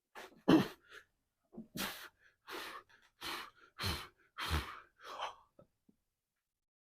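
A man's heavy, forceful breathing while he strains through a set of heavy barbell squats: a run of sharp exhales and gasps, roughly one every three-quarters of a second, that stops after about five seconds.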